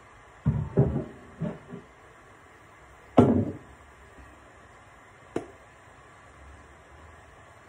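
Kitchen handling knocks and thumps: a few light knocks in the first two seconds, one heavier thump about three seconds in, and a single sharp click a little after five seconds.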